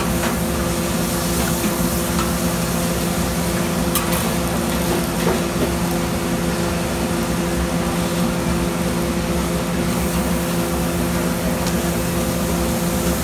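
Chopped steak, onions and peppers sizzling on a flat-top griddle, over a steady kitchen hum, with a few sharp clicks.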